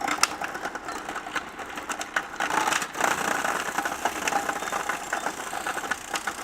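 Food processor motor running while its slicing disc cuts carrots into thin coins, a steady whir with frequent clicks and rattles as the carrot pieces are fed in and cut.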